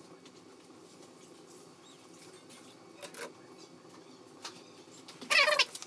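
Wood fire burning under a metal drying sheet, crackling faintly with a few scattered pops. About five seconds in comes a brief, louder squeaky sound whose pitch wavers.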